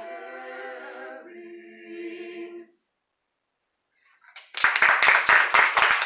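A mixed-voice a cappella ensemble sings the closing phrase of a song and holds a final chord that cuts off about two and a half seconds in. After a brief silence, the audience breaks into loud applause.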